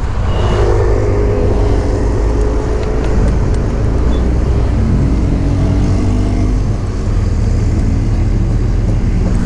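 Motorcycle riding, heard from a camera on the bike: a steady low rumble of engine and wind noise. The engine's tone drops lower about five seconds in as the bike slows to turn off the road.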